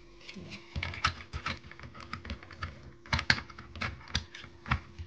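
Quick, irregular run of sharp clicks and taps, about two or three a second, like keys being pressed or hard plastic parts being handled, over a faint steady hum.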